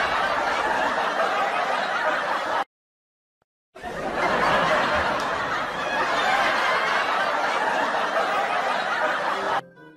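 A laugh track: a crowd of people laughing and chuckling in a dense, continuous wash. It cuts out completely for about a second near the three-second mark, resumes, and drops away just before the end.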